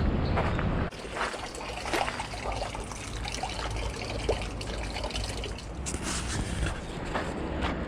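Water trickling and splashing, with scattered short clicks and taps through it. A low rumble drops away about a second in.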